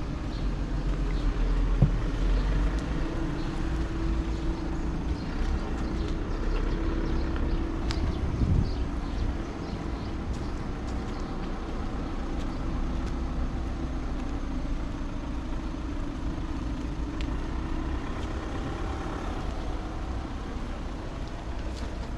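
A car engine running close by, a steady low hum and rumble that is loudest in the first few seconds and then eases off a little.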